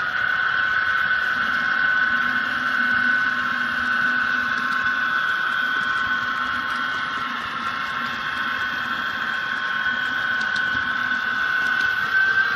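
HO-scale model train running along the layout track, heard from on board: a steady high whine from the locomotive's motor and gearing over an even rolling rumble of wheels on rail, the pitch rising a little near the end.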